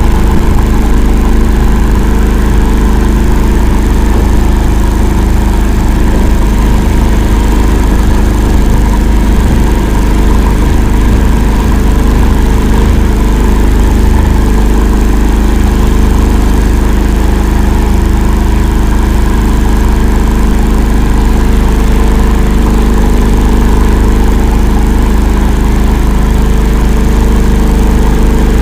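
Engine of an 'Akula' swamp-going all-terrain vehicle running steadily while it drives through marsh, a loud low drone at an even pitch.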